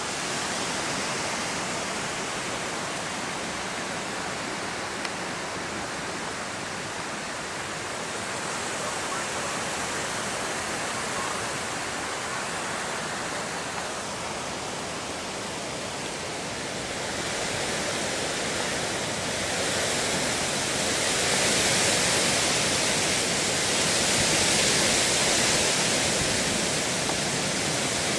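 Steady rushing of hurricane wind and rain, growing louder and hissier from about two-thirds of the way through.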